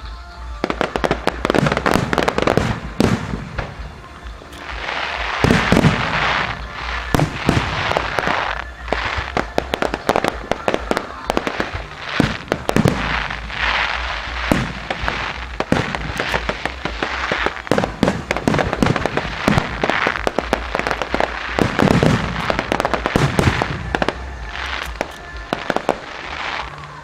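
Aerial fireworks shells bursting in quick, overlapping bangs, with stretches of dense crackling.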